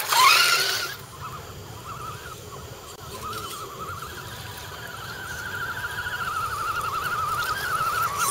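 Electric RC scale crawler truck's motor and gears whining, the pitch wavering with the throttle as the truck crawls through mud, growing louder as it approaches. A louder burst in the first second cuts off abruptly.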